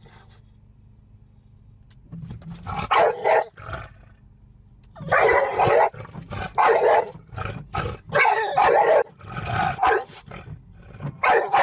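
Loud, harsh animal calls in a series of irregular bursts, starting about two seconds in.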